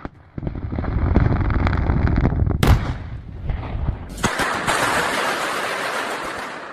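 Industrial rock blasting: a rapid rumbling series of detonations with one sharp crack about two and a half seconds in. About four seconds in, a loud rushing noise starts suddenly and slowly dies away.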